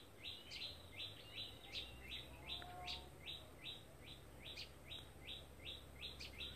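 Faint, steady rhythmic chirping, about four short chirps a second, with a low hum coming in about two seconds in.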